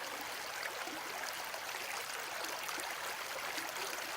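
Steady rushing hiss with faint crackles, like running water.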